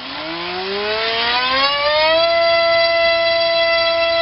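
Racerstar BR2406S 2300 kV brushless motor spinning an APC 6x4 gas propeller on a 3S pack, run up from standstill on a thrust stand. Its whine rises in pitch over about two seconds, then holds steady at high speed over the rush of the propeller's air.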